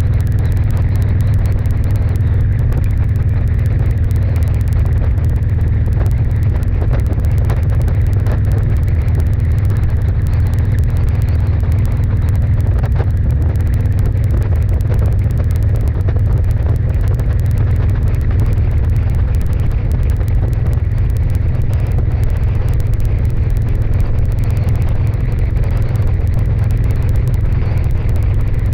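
Steady low rumble of wind buffeting and road noise from a camera riding along a highway at speed, with a faint steady hum underneath.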